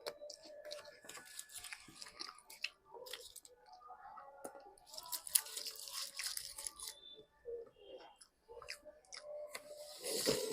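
A person eating close to the microphone: irregular chewing, biting and crunching mouth sounds, with a longer noisy burst about five seconds in and another near the end.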